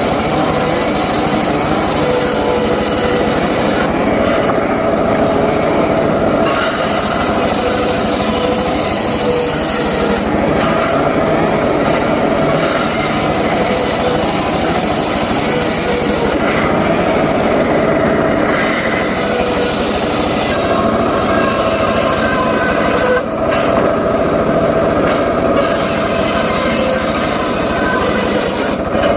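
Homemade circular saw running continuously while cutting wood. Its high hiss eases off for about two seconds roughly every six seconds.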